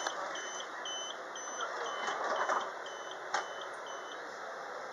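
Door-closing warning beeps of a Sydney Trains Millennium (M set) electric train: short high beeps, about two a second, stopping about four seconds in. A sharp knock a little over three seconds in, as the doors shut.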